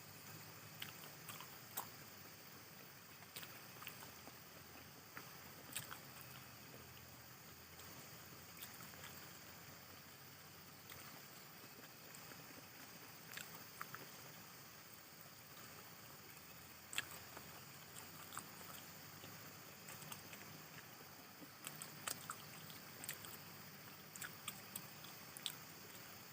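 Faint eating sounds: quiet chewing and mouth smacks with scattered sharp clicks at irregular intervals, over a steady low hiss.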